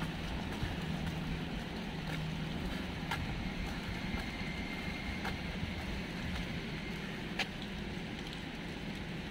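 Wet city street ambience: a steady wash of traffic and rain noise with a low engine hum running under it. Three or four sharp ticks are scattered through it.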